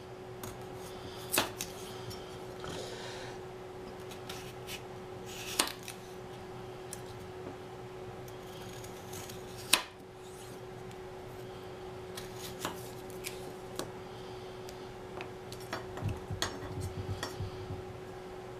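Kitchen knife slicing a raw baking potato on a wooden butcher-block board: scattered knocks as the blade cuts through and meets the wood, with quicker small clicks and scrapes in the last few seconds. A faint steady hum runs underneath.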